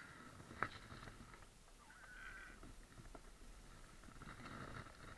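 Near silence with a few faint knocks and rustles from a kayak nosing onto a sandy riverbank, hands gripping its deck.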